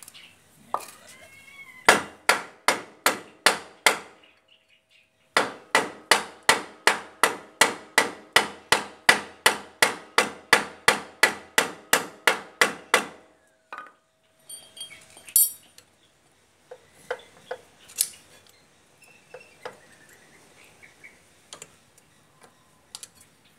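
Hammer blows on a Bajaj three-wheeler's rear brake drum, in two steady runs of about three strikes a second with a short pause between. The drum rings after each blow. Scattered lighter clicks of a tool at the hub follow.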